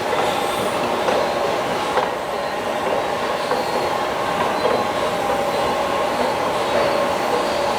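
Hotel elevator car running: a steady mechanical rumble and hum, with a few faint clicks.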